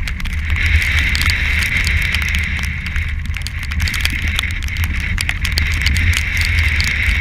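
Strong wind buffeting the microphone of a deck-mounted camera on a yacht heeling in rough seas. Sea spray ticks on the camera housing over a steady hiss of wind and rushing water.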